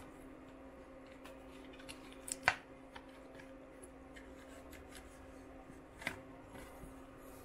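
A trading card in a clear plastic sleeve being handled: soft rustling and small clicks of the plastic, with a sharper click about two and a half seconds in and another about six seconds in, over a faint steady hum.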